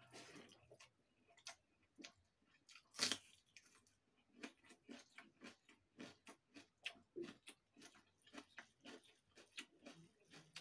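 A person eating leftover rice with raw onion by hand: close, wet chewing with many small mouth clicks and crunches, and one louder crunch about three seconds in.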